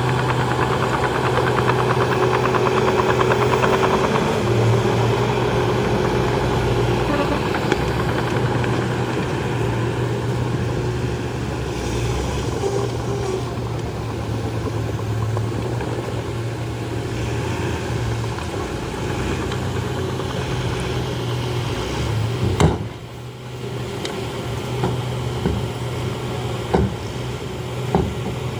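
Shantui DH17C2 bulldozer's diesel engine running steadily. About two-thirds of the way through there is a sharp knock followed by a brief dip in the engine sound, then a few smaller clicks near the end.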